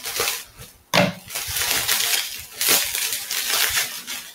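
Taped bubble-wrap packaging being cut open with scissors and pulled apart: bursts of plastic crinkling and rustling, the loudest starting sharply about a second in.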